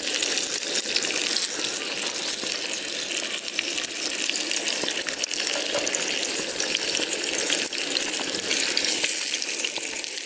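Beef steak sizzling in a hot cast-iron skillet: a steady hiss dense with small crackling pops.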